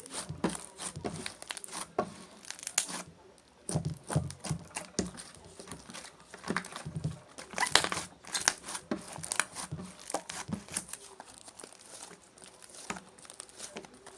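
Chewy red slime being handled and stretched: irregular sticky squishes with quick crackling clicks.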